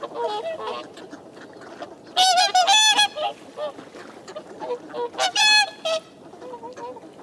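A flock of whooper swans calling: bugling honks, loudest in a quick run of calls about two seconds in and again about five seconds in, with softer calls in between.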